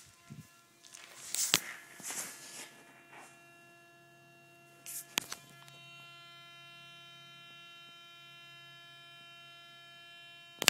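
A 2010 Toyota Tundra making a steady hum, several pitches held level and unchanging. A few knocks and rustles break in during the first half and again right at the end.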